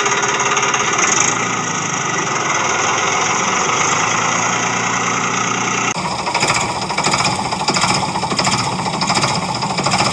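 Small electric motor and gearing of a toy vehicle running with a steady buzz; about six seconds in it cuts abruptly to a rougher, pulsing grind.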